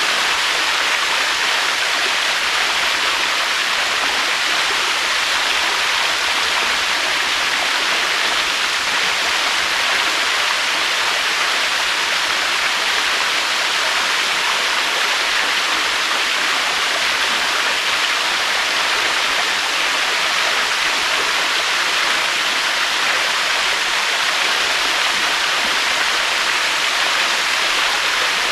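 Waterfall: a steady, even rush of falling water that holds the same level throughout, without surges.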